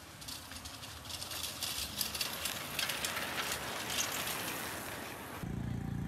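Bicycles rattling past on a rough village road, a dense clattering that swells and then fades. It cuts off abruptly near the end and gives way to a low steady hum.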